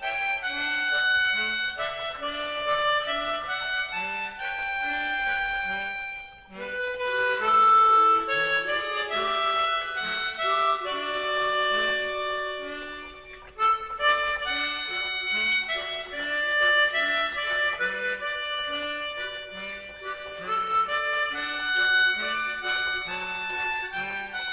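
Background music: a melody of held notes over a steady, regularly pulsing bass line, with two brief breaks in the phrasing about six and a half and thirteen and a half seconds in.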